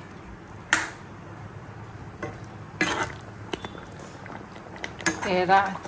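A steel ladle clinks a few times against an iron kadai of simmering fish curry, about a second in and again near three seconds, over a faint steady hiss.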